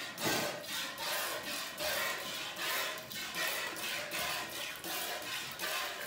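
Cow being milked by hand: jets of milk squirting into a pail in quick alternating spurts, about two a second.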